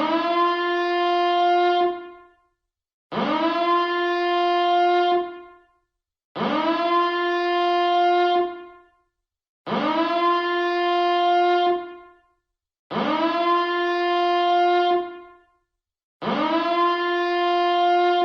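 Nuclear power plant reactor alarm siren sounding in repeated blasts, about one every three seconds. Each blast swoops quickly up in pitch, holds a steady horn-like tone for about two seconds, then fades away before the next.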